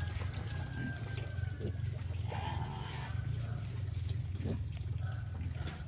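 Native pigs grunting, with a short squeal about two seconds in, over a steady low rumble.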